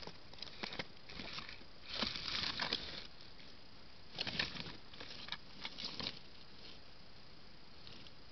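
An animal moving about in dry leaves and twigs, making crackling and rustling in short spells over the first six seconds, loudest around two to three seconds in and again a little past four seconds.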